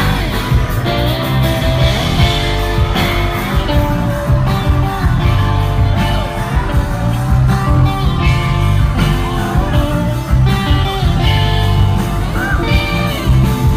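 A live rock band playing loudly: electric guitars and drums under a heavy bass, with a male lead singer singing.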